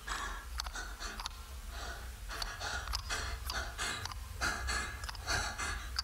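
Quick, heavy breathing, about two breaths a second, over a low steady rumble.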